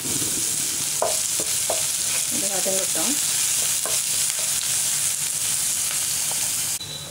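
Chopped onion, ginger, garlic and green chilli sizzling in hot oil in a nonstick pan, stirred with a wooden spatula, with a few sharp clicks. The sizzle cuts off suddenly near the end.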